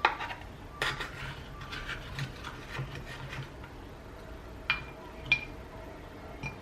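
Dishes and utensils clinking and scraping, with a sharp knock at the start and two short, ringing clinks about five seconds in.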